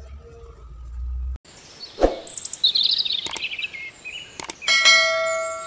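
Outro sound effects for a subscribe-button animation: a sudden thump, high chirping bird-like calls and sharp clicks, then a bell-like ding near the end that rings and slowly fades.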